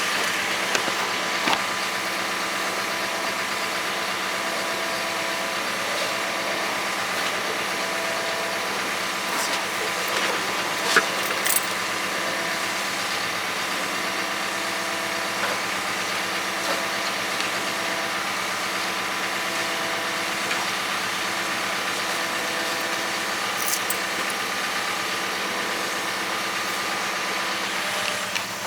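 Cat 320 excavator's diesel engine running steadily while the machine is positioned on a lowboy trailer, with a few short sharp knocks and clanks.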